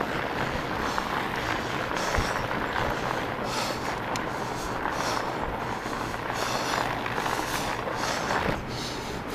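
Steady rushing noise of a fat bike being ridden along a snow-covered trail: wide tyres rolling over packed snow, heard from the bike's handlebar-mounted camera.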